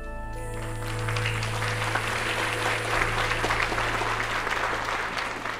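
Audience applauding as a recital piece ends, swelling in the first second and tailing off near the end, with the last held notes of the music fading out underneath at the start. A steady low hum runs beneath.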